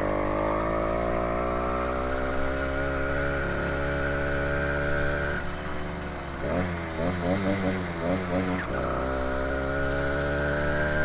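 80cc two-stroke motorized-bicycle engine pulling under way, its pitch climbing slowly as it picks up speed. About five seconds in the revs drop and waver up and down for a couple of seconds, then it settles and pulls steadily again.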